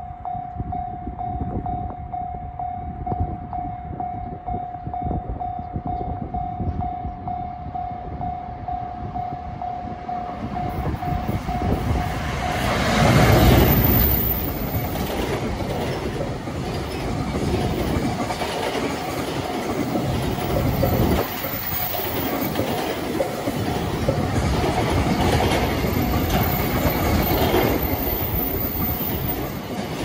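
Level-crossing warning alarm sounding steadily while a freight train approaches. About 13 seconds in the EF510 electric locomotive passes at its loudest, drowning the alarm, and a long rake of container wagons follows, wheels clattering over the rail joints.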